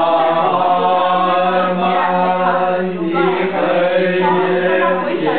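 A group of voices singing slowly in long, held, chant-like notes, with one steady low note sustained beneath them.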